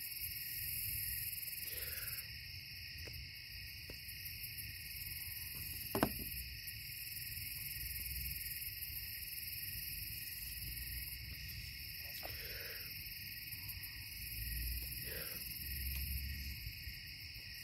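Steady nighttime chorus of insects and frogs, a continuous high trilling with no breaks, with a single sharp click about six seconds in.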